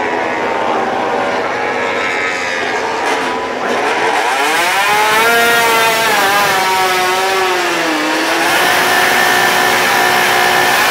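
Several MotoGP racing motorcycles running on the straight in a group, their engines blending together. About four seconds in, the engine note rises sharply and wavers, dips briefly, then holds steady near the end.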